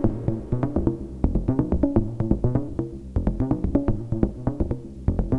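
Eurorack modular synthesizer playing a fast, sequenced pattern of short, pitched, bongo-like percussive hits over a low bass, the hits shaped by a Klangbau Köln Twin Peak filter and a Make Noise Optomix.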